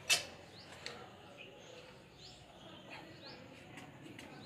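A sharp clank as a loaded barbell is lifted off a concrete floor, with a lighter knock a little under a second later. A bird chirps repeatedly in the background with short rising calls.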